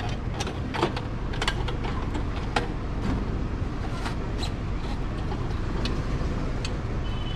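Wheel clamp being fitted to a car's front wheel: scattered sharp metallic clicks from the clamp's arms and ratchet as it is closed onto the tyre, over a steady low rumble of vehicles.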